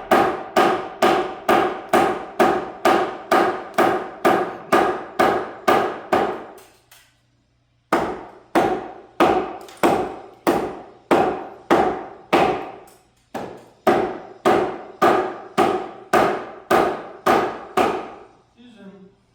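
Hammer pounding steadily at about three blows a second, each strike ringing briefly, with a break of about a second some seven seconds in. It is driving a tight-fitting new floor joist into place.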